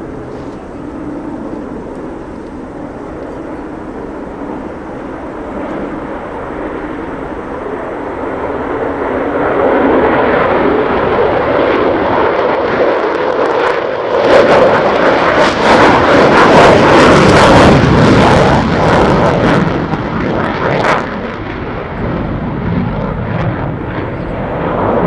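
Military jet fighter passing overhead: its engine noise builds over several seconds, peaks with a harsh crackle for about seven seconds, then fades and swells again near the end.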